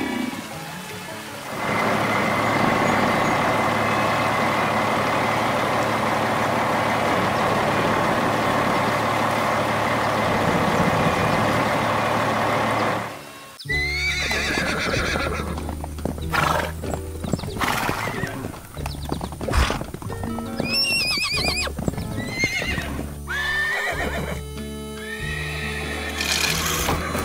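A steady rushing noise, then from about halfway through, several horse whinnies, each neigh falling in pitch, over background music.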